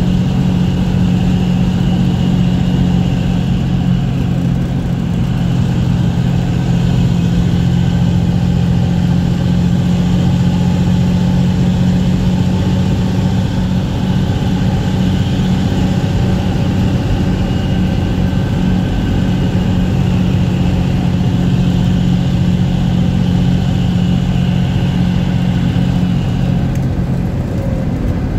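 Diesel engine of a 1975 Dodge Bighorn tandem-axle tractor running steadily under way at cruising speed, heard from inside the cab as a continuous low drone.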